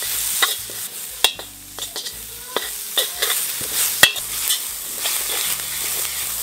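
Chopped shallots and garlic sizzling in hot oil in a wok, with a metal spatula scraping and clacking against the pan as they are stir-fried. The hiss is steady, broken by a dozen or so sharp clacks, the loudest about four seconds in: aromatics being sautéed until fragrant.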